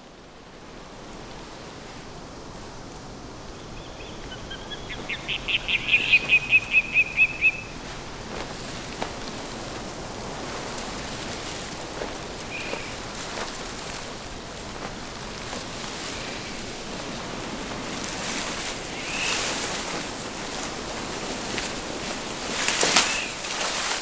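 Young white-tailed eagle giving a quick run of high calls, about four or five a second, starting about four seconds in, over a steady rustle of leaves. Near the end come wing beats and thrashing branches as it flaps into the foliage.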